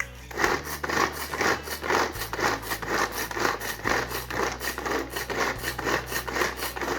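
Garlic being crushed and ground with salt: steady rhythmic scraping and rubbing strokes, about three a second, working it into a coarse, grainy paste.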